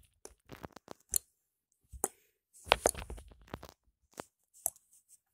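Scattered short rustles and clicks of plush toys being handled and moved about, with a busier cluster of them about three seconds in.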